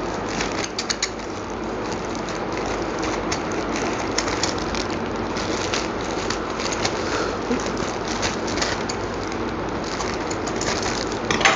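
Scissors cutting through a plastic courier mailer bag while the plastic is handled, a steady crinkling rustle with many short, sharp snips and crackles.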